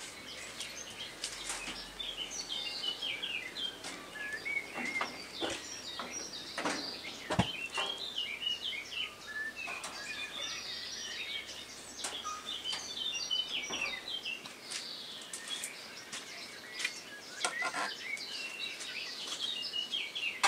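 Several songbirds singing and chirping, with a few sharp clicks and knocks in between, the loudest about seven seconds in and another cluster near the end.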